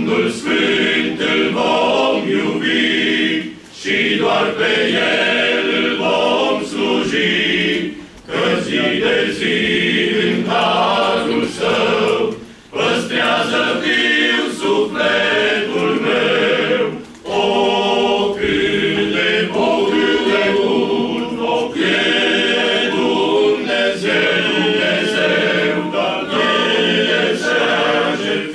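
Men's choir singing a hymn a cappella in several parts, phrase by phrase, with a short breath-pause between phrases about every four to five seconds.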